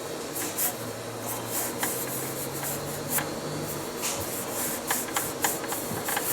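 Scotch-Brite abrasive pad scrubbing rust off a metal gear, in uneven back-and-forth rubbing strokes.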